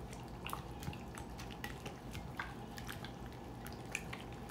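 Raw chicken strips squished and turned by a black rubber-gloved hand in a wet marinade in a bowl: irregular wet squelches and small clicks.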